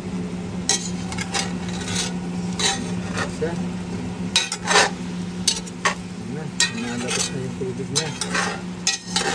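Chicken pieces sizzling in a stainless steel pot with garlic and onion while a metal spoon stirs them, with irregular scrapes and clinks of the spoon against the pot. A steady low hum runs underneath.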